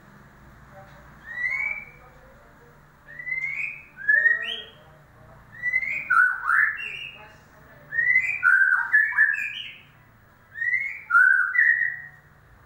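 White-rumped shama (murai batu) song: short phrases of clear, slurred whistled notes, about six phrases with brief pauses between them, used as a lure song to prompt a silent bird to sing.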